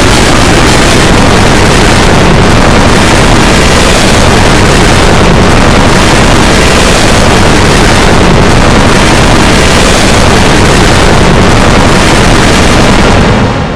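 Extremely loud, heavily distorted and clipped audio: a constant harsh wall of noise with no clear tones, beginning to fade out near the end.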